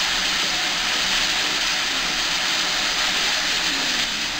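Steam hissing steadily from GWR 5600 class 0-6-2 tank locomotive No. 5637.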